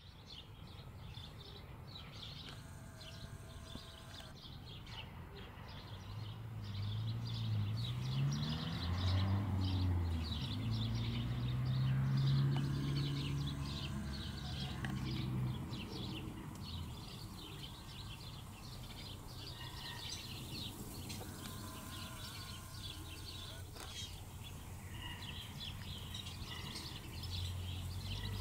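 Small birds chirping busily and continuously, many short high chirps a second. A low droning hum swells in the middle, wavers in pitch, and fades again.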